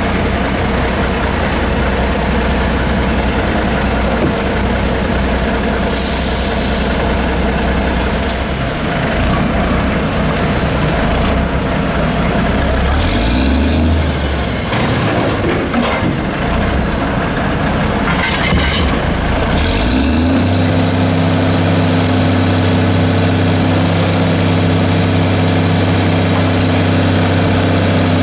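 1982 American LaFrance CTC garbage truck's diesel engine running steadily, with a loud hiss of air about six seconds in. Several clanks and shorter hisses follow in the middle. About twenty seconds in, the engine speeds up and holds a steady higher pitch.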